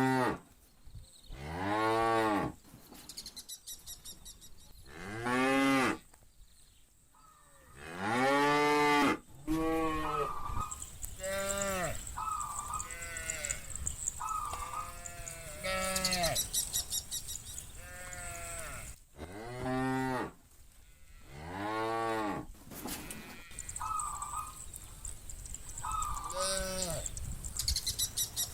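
A herd of cattle mooing again and again, with long calls that rise and fall in pitch and sometimes overlap. Shorter, higher-pitched moos come in between the deep ones.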